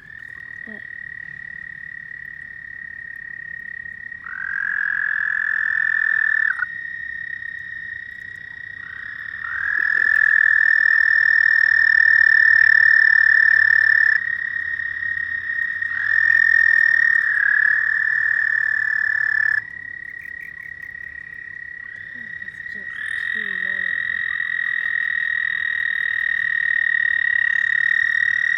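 Frogs calling at night: long, high trills of several seconds each start up one after another, about four times, sometimes overlapping, over a constant high-pitched trill from other frogs that never stops.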